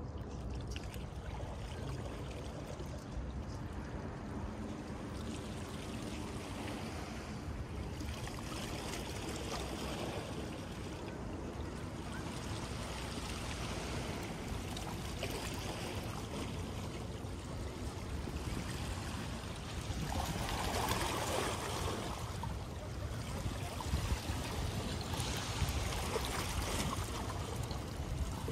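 Small waves lapping and trickling at the water's edge of the tidal River Thames, over a low steady rumble; the lapping grows louder for a couple of seconds about twenty seconds in and again near the end.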